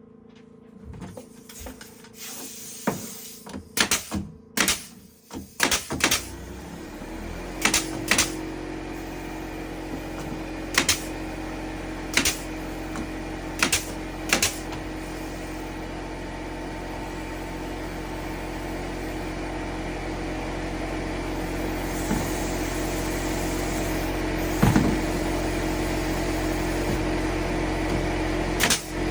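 A run of sharp knocks and clicks, then a machine starts about seven seconds in and runs with a steady hum that slowly grows louder, with a few single knocks over it.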